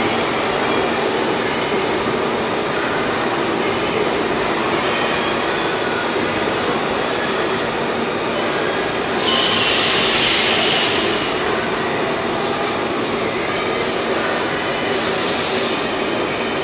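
Steel-coil decoiler running with a steady mechanical rushing noise, broken by bursts of high hiss about nine seconds in, around fifteen seconds, and again at the very end, while its expanding mandrel segments move in and out.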